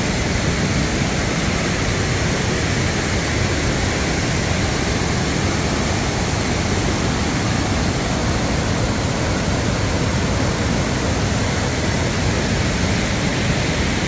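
Steady, loud rush of water from a tall waterfall in flood, swollen by heavy rain.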